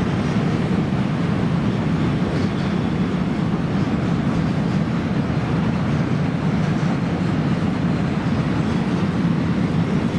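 Passenger train running on the track: a steady, even rumble.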